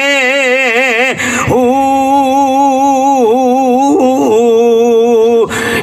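A man's voice chanting a line of Punjabi Sufi verse in a drawn-out melody. The long held notes waver in a slow vibrato, with a short break for breath just after a second in and another near the end.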